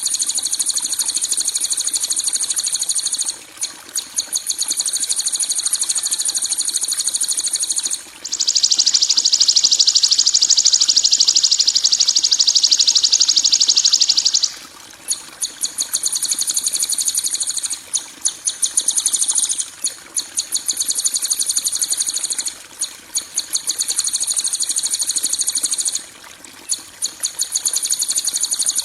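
Songbird training recording of harsh 'kasaran' calls: very rapid, high-pitched rattling trills in phrases a few seconds long, separated by short breaks. About a third of the way through comes a louder, denser buzzing trill lasting about six seconds.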